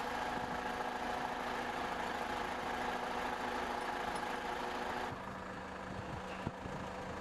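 A steady engine or machine running with an even hum, its sound turning duller and a little quieter about five seconds in, with a few faint knocks after.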